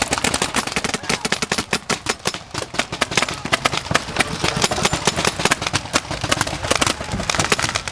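Several paintball markers firing rapidly and irregularly, many sharp pops a second overlapping.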